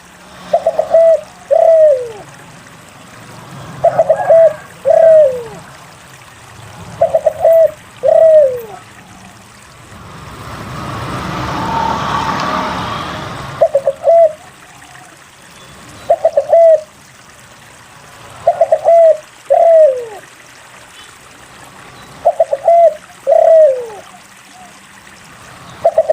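Spotted dove (derkuku) cooing: phrases of two or three quick notes followed by a longer, falling note, repeated roughly every three seconds. Midway a swell of whooshing noise rises and fades over about four seconds while the calls pause.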